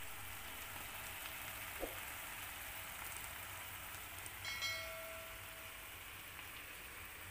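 Shimeji mushrooms and bell peppers simmering in sauce in a frying pan, a steady sizzling hiss like light rain. About four and a half seconds in, a bright ringing ding from a subscribe-button sound effect.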